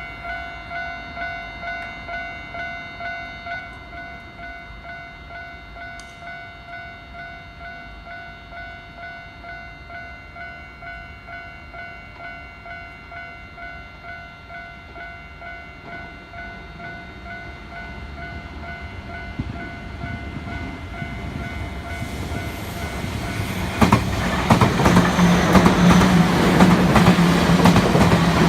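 Japanese level-crossing warning bell ringing in a steady, even ding, a little under two strokes a second. A train then approaches and passes loudly from about 24 s in, its wheels clattering over the rail joints and drowning out the bell.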